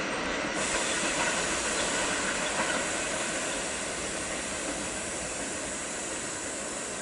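BLS Re 4/4 electric locomotives running away into a tunnel, a steady rushing, hissing rail noise that slowly fades.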